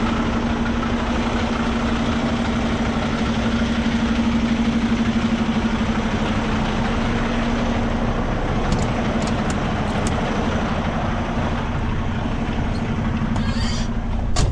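Semi truck's diesel engine running steadily with an even drone, with a short hiss near the end.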